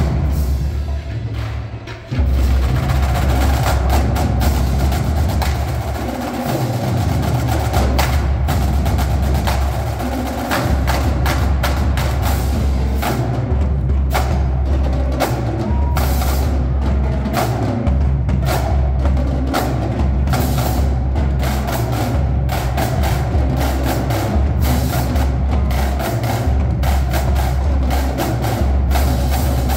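High school marching drumline playing: snare drums, tenor drums, bass drums and cymbals, with rapid stick strikes over low bass-drum tones. The playing drops off briefly and comes back in loudly about two seconds in.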